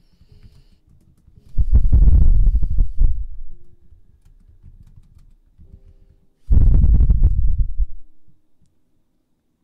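Feather-tipped ear pick brushed over a binaural microphone's ear: two loud, low, scratchy rustling strokes of about a second and a half each, a few seconds apart.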